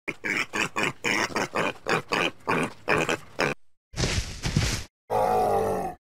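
Film dinosaur vocal sound effects: a quick run of short clipped calls, about four or five a second, then a hiss lasting about a second, then one longer call near the end.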